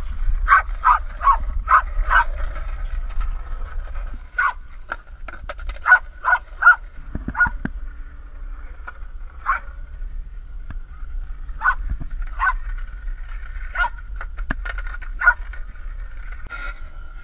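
A dog barking in short, sharp barks: a quick run of about five at the start, then single barks every second or two, over a steady low rumble.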